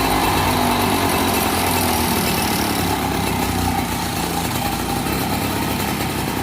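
Two-stroke Mobilete moped engine running steadily, held at a slightly raised idle. It runs evenly after a carburettor fix with a piece of can as a shim, which the rider thinks has worked. It gets a little quieter about four seconds in.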